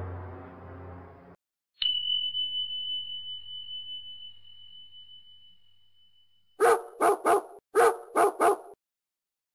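A single bell-like ding about two seconds in that rings out and fades over several seconds. Then a dog barks six times in two quick sets of three, the loudest sounds here.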